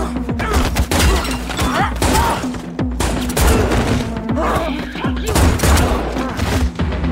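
Film shootout sound effects: rapid gunfire, many shots close together and spread throughout, over a pulsing music score.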